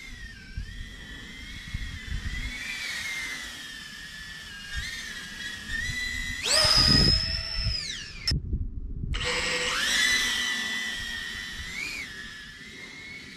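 Speed quadcopter with eight-blade propellers flying fast: a high motor-and-propeller whine that rises and falls with the throttle. About six and a half seconds in it jumps sharply in pitch and is at its loudest during a close low pass, then falls away; the sound cuts out for under a second just after.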